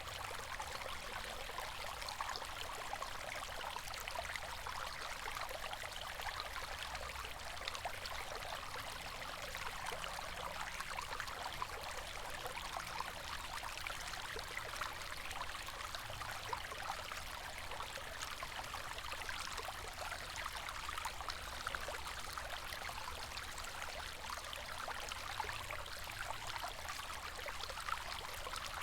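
River water flowing steadily, a continuous rushing and babbling with fine splashing detail.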